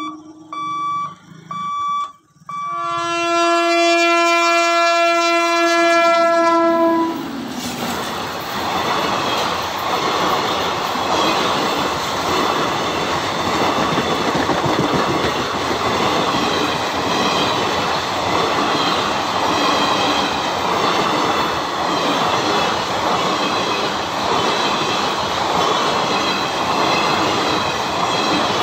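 Electric horn of an EMU local train: a few short broken toots, then one long blast of about four seconds. The train then runs through the level crossing at speed, its wheels clattering steadily over the rail joints as the coaches pass.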